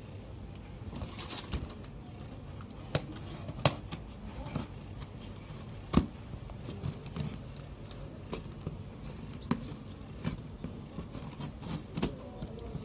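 Cardboard box of a desk fan being opened and its contents handled: irregular clicks, knocks and rustles, with two sharper knocks about four and six seconds in.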